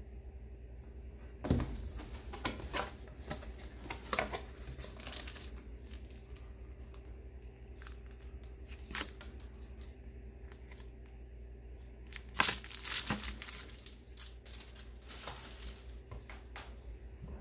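Cardboard packaging and paper instruction leaflets being handled while a box is unpacked: rustling, scraping and crinkling in two bursts, one about a second and a half in and another about twelve seconds in, with a few stray clicks between. A low steady hum runs underneath.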